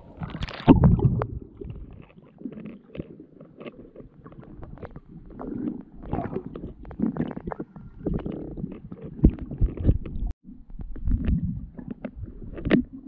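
Sound of a camera under water in a lake: muffled low rumbling and irregular knocks as it moves through the water, with a loud splash-like burst about a second in as it goes under the surface.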